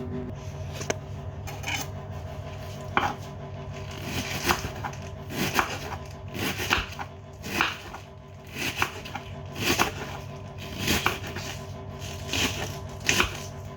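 Knife chopping cabbage on a cutting board: sharp strokes roughly once a second, some in quick pairs or clusters.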